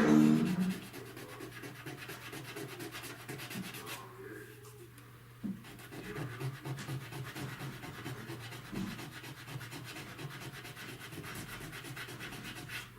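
Sanding on a car body panel: a steady rubbing scrape made of fast, even strokes, with a few slightly louder swells.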